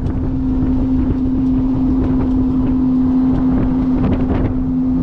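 Electric Club Car DS golf cart driving at speed and picking up pace: a steady, even-pitched hum from the drive over a rumble of wind and tyre noise on the microphone.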